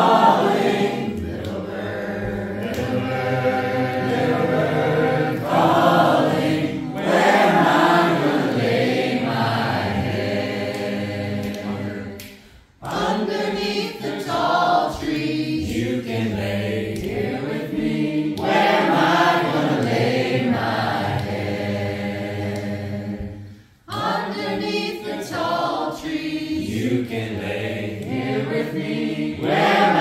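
A small group of mixed voices singing together a cappella, in long sung phrases, with two brief pauses about 13 and 24 seconds in.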